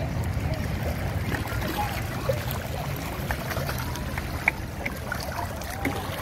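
Shallow ocean water lapping and sloshing below a pier, with scattered small splashes at the surface and a steady low rumble.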